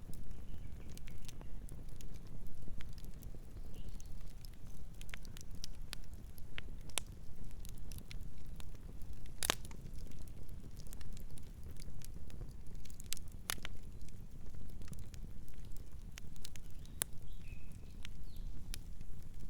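Campfire crackling, with irregular sharp pops and snaps of varying strength; the loudest pop comes about halfway through.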